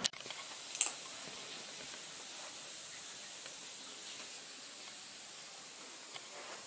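Steady, even hiss of room tone and recording background noise, with a brief crackle about a second in.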